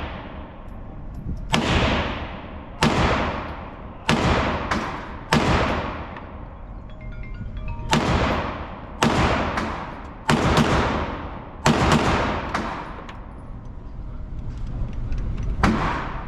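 About a dozen single gunshots fired at an unhurried pace, roughly a second or so apart with a longer gap near the end, each followed by a long echoing tail in an indoor range.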